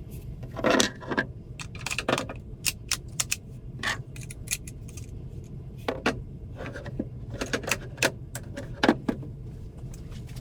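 Irregular clicks, clinks and short clatters of small hard parts being handled, a few louder knocks among them, over a steady low hum.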